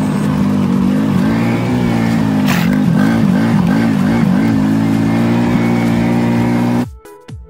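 Engine of a farm side-by-side utility vehicle running as it is driven, its pitch swinging up and down several times in quick succession in the middle as the driving lurches, with a sharp knock about two and a half seconds in. Music cuts in suddenly near the end.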